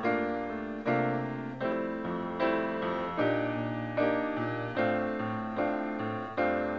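Piano intro to a song: slow, even chords, a new one struck a little more than once a second, each dying away before the next.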